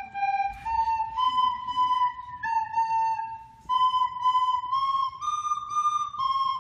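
Two small woodwind instruments playing a simple melody in unison, clear flute-like notes stepping up and down, with a short breath gap a little past halfway.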